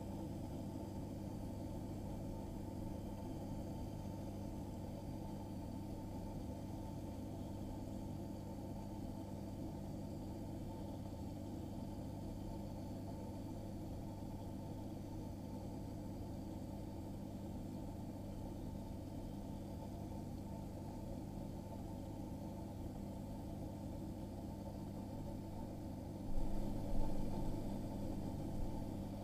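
Steady low electrical hum of aquarium pump equipment running. About 26 seconds in, a few louder low bumps come over it for a couple of seconds.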